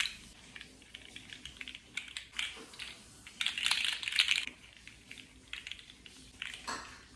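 Plastic fidget slug toy clicking and rattling as its jointed segments flex while it is waved and twisted, with a dense flurry of clicks about three and a half seconds in.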